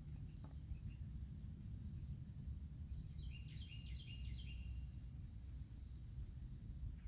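A small songbird sings one quick phrase of about ten short, rapid, falling notes about three seconds in, with a few faint chirps around it, over a steady low background rumble.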